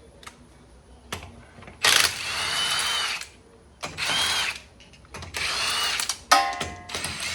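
Handheld power tool like a cordless drill running in three bursts of about a second each, its pitch rising and falling within each burst, then a shorter buzzing run near the end.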